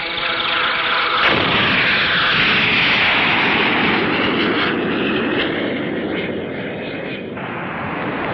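Special-effects explosion sounds: a sudden loud blast about a second in, then continuous rumbling blasts that ease off near the end.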